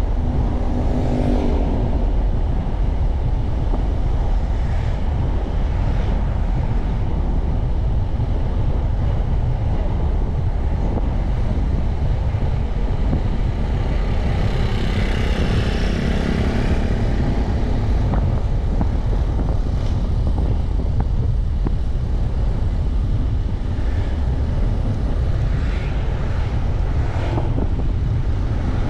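Steady low road and wind rumble from a vehicle driving along a street. Other vehicles pass with a rising engine note about a second in, a louder swell around the middle, and another near the end.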